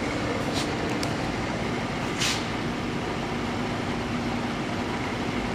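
Front-loading washing machine draining: a steady drain-pump hum with faint steady tones, ahead of the spin. A few light clicks, the strongest about two seconds in.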